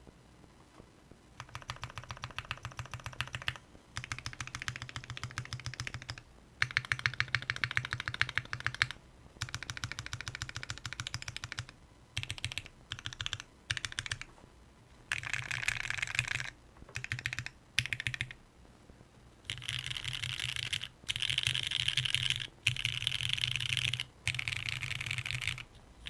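Typing on a Palmetto 60% custom mechanical keyboard with lubed and filmed Gateron Black Ink v2 linear switches, GMK Cherry-profile keycaps and an O-ring-mounted carbon fiber plate. The keystrokes come in runs of quick clicking of a second or a few seconds each, with short pauses between them.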